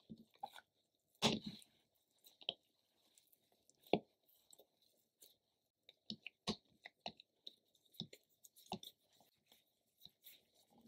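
Soft thumps and light taps of bread dough being set down and shaped by hand on a silicone baking mat, with two louder thumps about a second in and about four seconds in, then a run of smaller taps.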